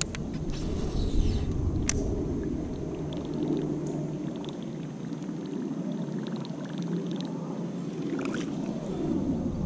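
Water sloshing around a plastic kayak, with a low rumble that fades out in the middle and returns near the end, and a couple of sharp taps, one just after the start and one about two seconds in.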